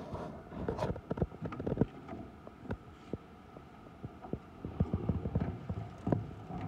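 Handling noise from a handheld phone camera: irregular soft knocks, thumps and rubbing, over a faint steady hum.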